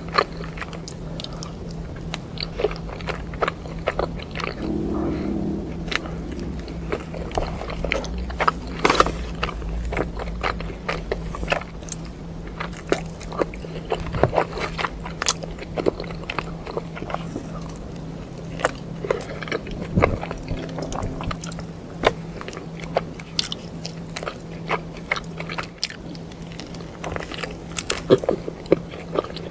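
Close-miked eating of a burger sandwich: biting and chewing, a constant run of short wet clicks and crunches, over a steady low hum.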